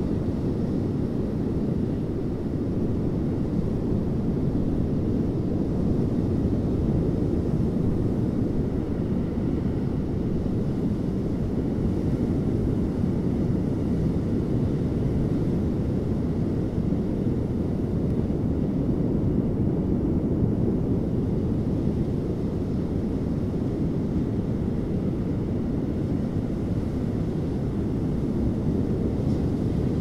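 Ocean surf breaking on a sandy beach, heard as a steady deep rumble with little rise and fall.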